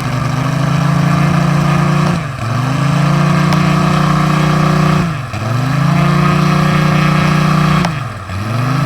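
Simulated radial-engine sound played by the onboard sound system of a radio-controlled P-47 model: a loud steady drone whose pitch dips and climbs back three times, about every three seconds.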